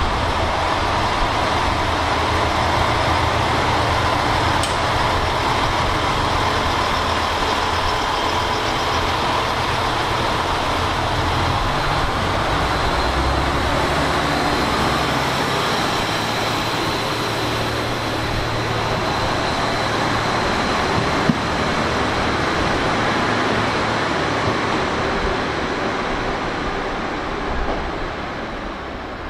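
JR Shikoku N2000 series diesel railcars pulling out under power, their diesel engines running loudly and steadily as the cars roll past along the platform.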